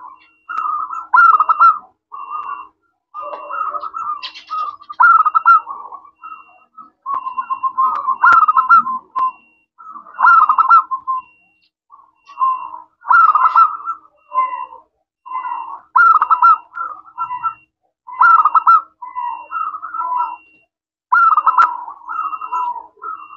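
Zebra dove (perkutut lokal) cooing: short, rapid, trilling coo phrases repeated every second or two. A faint, regular high chirp runs behind it.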